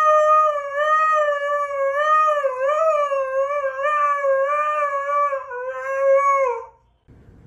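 Husky howling: one long, wavering howl that slides up and down in pitch, then drops and fades out about a second before the end.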